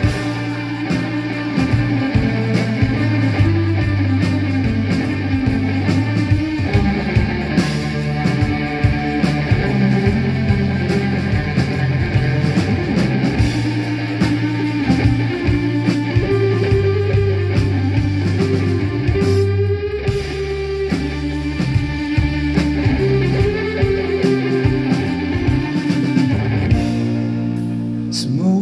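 Live rock band playing an instrumental passage: electric guitar over electric bass and a drum kit.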